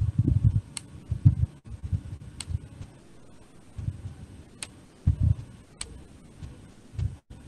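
Scattered sharp clicks every second or two over irregular dull low thumps: hands working a computer's mouse or pen and the desk while drawing on a digital whiteboard.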